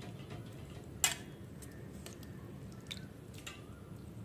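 Light kitchen handling sounds: one sharp click about a second in and a few faint ticks, over a low steady hum.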